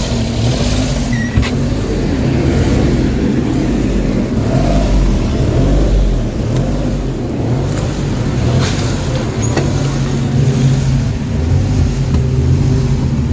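Suzuki DA17's K6A three-cylinder engine running warm with a hunting idle, its RPM rising and falling repeatedly. This is the surging fault, which sets no fault code.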